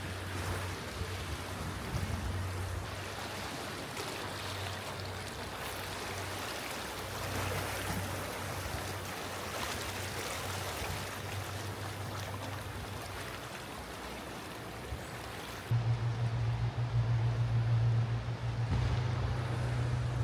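Waves washing on a rocky shore, with a steady low engine hum beneath. About three-quarters of the way through, the sound changes abruptly to a louder, steady low engine drone.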